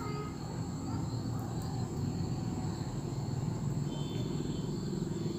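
Steady low background rumble with a faint high-pitched whine over it.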